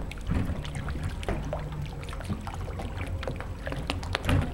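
Motorboat engine running low and steady as the boat comes in slowly at idle speed, with scattered small clicks over it.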